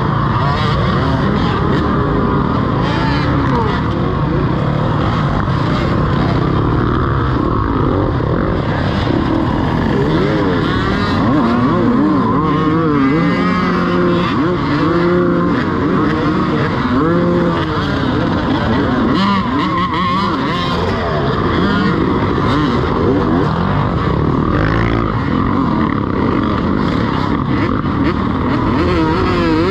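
Dirt bike engines revving, their pitch climbing and dropping again and again as the riders accelerate and shift, with more than one engine sounding at once at times.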